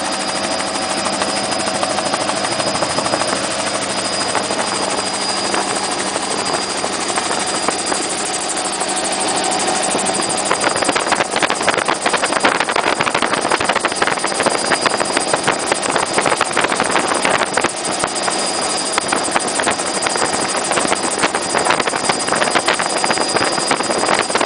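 Helicopter in flight heard from aboard: continuous engine and rotor noise with a steady high whine, turning rougher and a little louder about ten seconds in.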